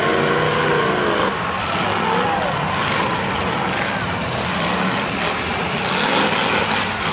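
Several demolition derby cars' engines running and revving at once over a steady loud din, with a few sharp knocks around five to six seconds in as the cars hit one another.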